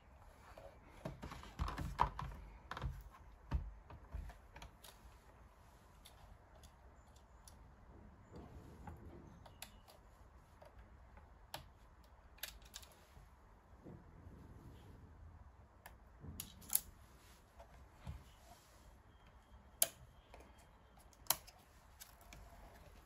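Scattered light clicks and taps from hands handling a tablet scan tool and small tools while taking it apart for a battery change. There is a run of louder knocks in the first few seconds and a few sharp clicks later on.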